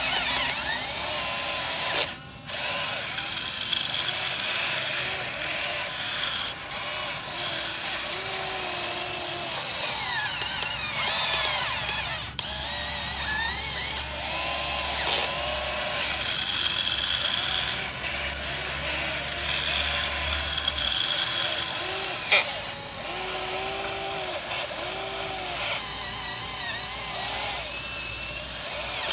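Electric motors and gearboxes of a Huina 580 RC excavator whining as the machine works, with many short whines rising and falling in pitch as functions start and stop. There is a sharp click about 22 seconds in.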